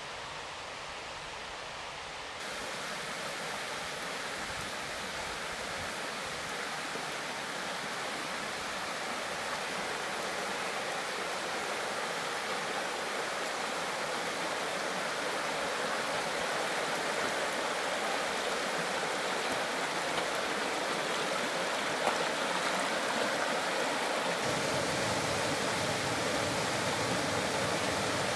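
A rocky mountain creek rushing steadily over stones. It is softer for the first couple of seconds, then grows gradually louder.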